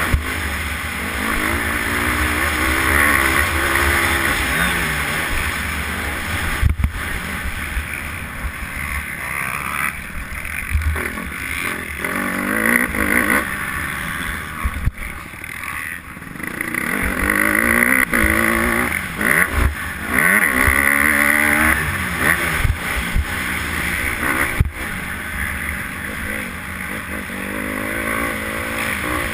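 Honda motocross bike engine revving up and dropping off again and again as the rider accelerates, shifts and backs off for corners and jumps, with wind noise over the on-bike microphone. A few sharp knocks stand out.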